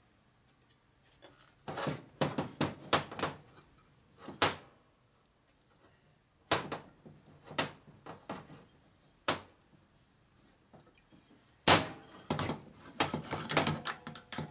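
Irregular clicks and knocks of metal engine parts and hand tools being handled during valve spring installation on a Panhead cylinder head. They come in several short clusters with pauses between, and the sharpest knock falls about twelve seconds in.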